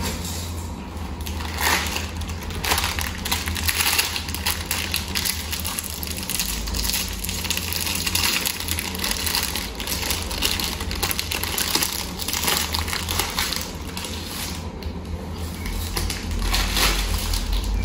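Plastic wrapper of a package of dry spaghetti crinkling and crackling in irregular bursts as it is torn open and handled, with the dry pasta going into a pot of boiling water.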